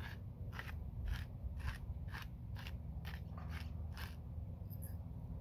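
Hand salt grinder being twisted, crunching pink Himalayan salt crystals in short rasps about twice a second, stopping about four seconds in.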